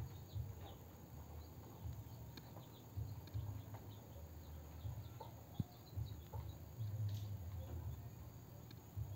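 Faint background with scattered short high chirps over an on-and-off low rumble, and one sharp click a little past halfway.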